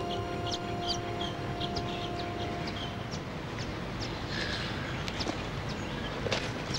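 Birds chirping in bushland: many short, quick, downward chirps over a steady outdoor hush. Held notes of background music fade out about three seconds in, and a few sharp clicks come near the end.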